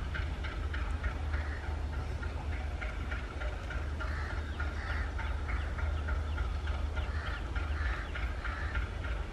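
ALCO WDM-3A diesel locomotive's 16-cylinder engine running with a steady low rumble as it pulls a passenger train slowly forward. A patter of short high-pitched chirps or ticks sounds over it.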